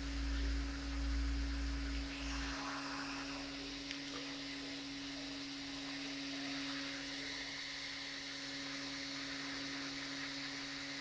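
Homemade brushless motor with hand-wound copper coils running a small propeller, giving a steady hum over a light hiss. A low rumble is heard for the first two seconds or so.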